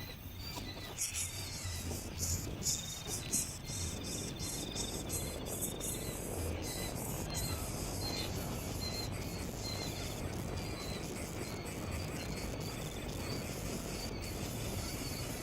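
Insects, likely crickets, chirping in short repeated trills over steady outdoor noise, with a run of sharp clicks and taps in the first few seconds.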